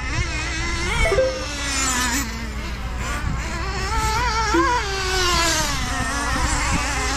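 Small engines of several gas-powered RC racing trucks buzzing around the track, their pitch rising and falling as they accelerate and back off.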